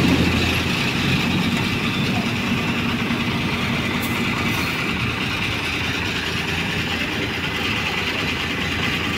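A vehicle engine idling steadily amid continuous road traffic noise.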